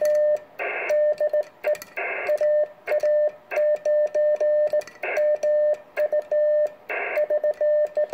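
Morse code sent on a Vibroplex semi-automatic bug key whose pendulum is slowed by a clothespin and framing nail. It comes through as a steady mid-pitched sidetone keyed in dits and dahs, with sharp clicks at the keying edges and bursts of hiss in the gaps between characters.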